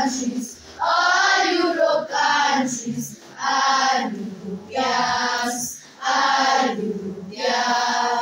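A choir singing in short phrases, each about a second long and separated by brief breaks.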